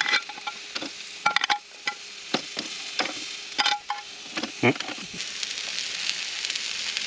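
Lobster searing on a hot barbecue grill, sizzling steadily, with sharp clinks of metal tongs about every second as the claws are lifted from a glass dish and set on the grate.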